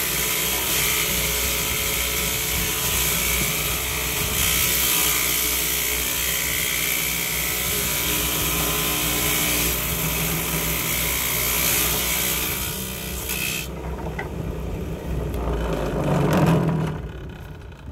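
Homemade table saw, driven by an electric motor under the table, running and cutting the rail slots into wooden ties as they are pushed across the blade: a steady hissing saw noise. Near the end the high hiss stops abruptly, and a brief, louder, lower noise swells and fades.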